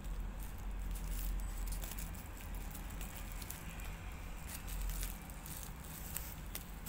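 Bubble wrap and a plastic sleeve crinkling under fingers: scattered small sharp ticks and crackles over a soft rustle.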